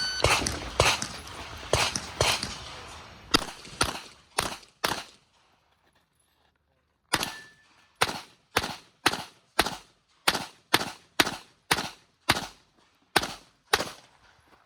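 9mm Glock 26L pistol firing shot after shot through a practical-shooting stage: about nine shots over the first five seconds, a pause of about two seconds, then a steady string of about fourteen shots at roughly two a second.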